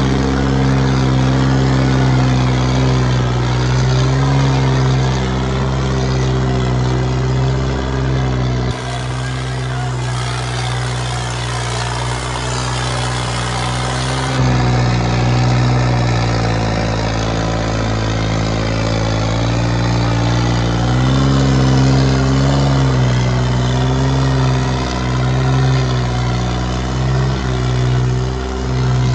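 Diesel tractor engine running hard at high revs, its pitch sagging and recovering. The sound changes abruptly twice, about nine and fourteen seconds in.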